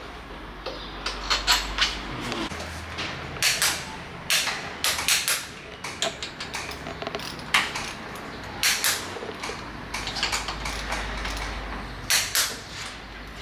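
Irregular sharp clicks and light knocks from a hand tool being worked on a motorcycle's handlebar, about a dozen spread unevenly, over a faint steady low hum.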